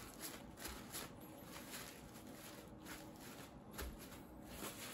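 Faint, irregular rustling and soft patting of a paper towel pressed and dabbed onto raw pork belly skin, blotting moisture off it.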